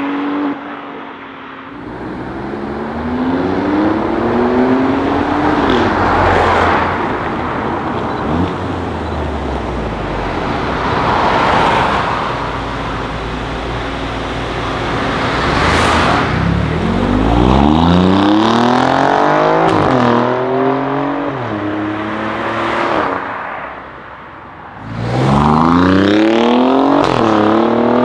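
Alfa Romeo Giulia Quadrifoglio's 2.9-litre twin-turbo V6 accelerating hard several times, the engine note climbing through the revs and dropping back at each upshift. The loudest runs come in the second half.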